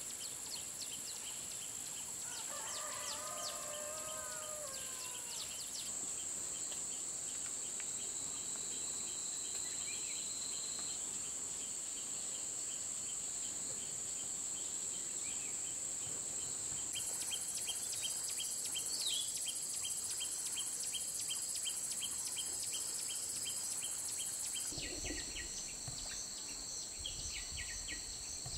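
Countryside ambience: a steady high-pitched chorus of insects with rapid chirping, shifting abruptly a few times. A bird calls briefly about three seconds in, and a low rumble comes in near the end.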